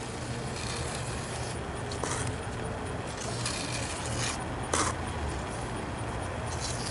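A steady low engine-like hum, with a few short scraping noises and a single sharp knock a little under five seconds in.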